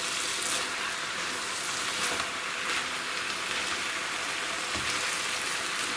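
Steady sizzling of rice and vegetables frying in a wok, with faint scraping as the rice is turned over and mixed in.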